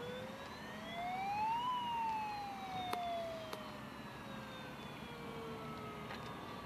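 Radio-controlled model boat giving a single whine that rises for about two seconds, then slowly falls away, like a siren wail. Two faint clicks sound near the middle.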